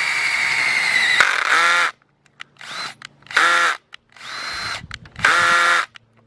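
Electric drill drilling out the rivets on a DC motor's back plate. It runs with a steady high whine for about two seconds, then cuts off, and is triggered in four short bursts after that.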